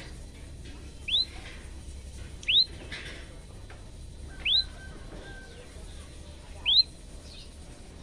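Common tailorbird calling: four short, sharp notes, each sweeping quickly upward in pitch, spaced about one and a half to two seconds apart.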